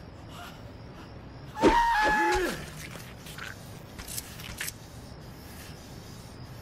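A man's loud shout, under a second long, about two seconds in. It is followed by quieter film-soundtrack ambience with a few faint knocks.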